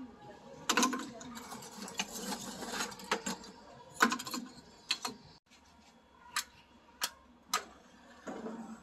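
Lumps of charcoal being dropped and set by hand into a metal charcoal stove, a series of sharp clinks and knocks as the pieces strike each other and the stove. Near the end there are three separate sharp clicks about half a second apart.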